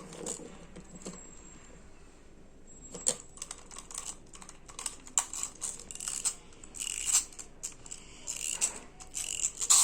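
Small hands working on a broken toy doll being repaired: an irregular run of small clicks and taps that starts about three seconds in and grows busier, with a few short scrapes near the end.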